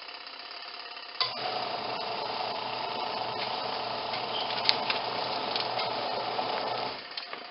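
Auauna twin tub washing machine's wash tub on its soft setting: after a short pause, a click about a second in and the motor starts up again, running with a steady low hum and the churning of water and clothes, then stops shortly before the end.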